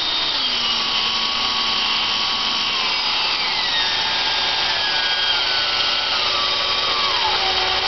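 Electric drill running as it is slowed down, spinning a speedometer's sending unit; its motor whine falls in pitch in several steps over a steady whirring noise.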